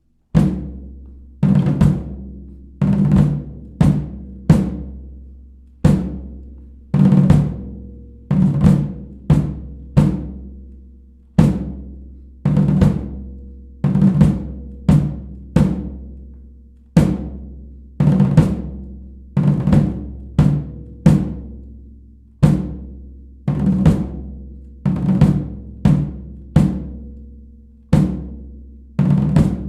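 Drums playing a cadence: a steady, repeating pattern of sharp drum hits with low ringing tones, about one a second with occasional quick doubles, starting a moment in.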